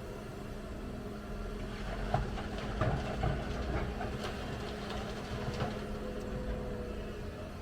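Hyundai excavator's diesel engine running steadily, with a run of clanks and knocks from about two to six seconds in.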